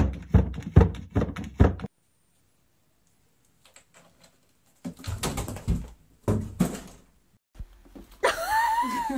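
A cat batting at a clear plastic flap door from inside an enclosure: a quick run of plastic knocks, two or three a second, that stops about two seconds in. Near the end comes one drawn-out call that rises and falls.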